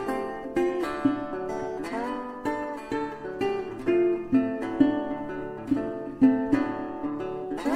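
Background music: acoustic guitar picking a melody of plucked notes, roughly two a second.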